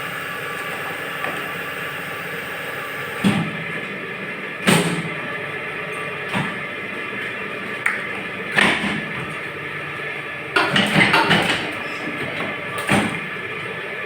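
Small gallon-cap moulding machine running with a steady hum, broken by sharp clacks every second or two and a burst of rattling knocks about ten seconds in.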